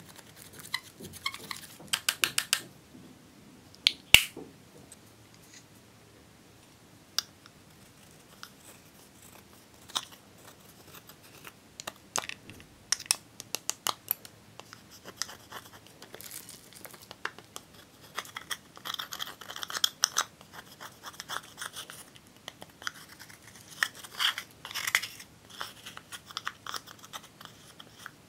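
Makeup being scraped out of its containers: scattered small clicks and taps at first, with one sharp click about four seconds in. Then a metal spatula scrapes and crumbles pressed powder in a plastic compact in scratchy strokes.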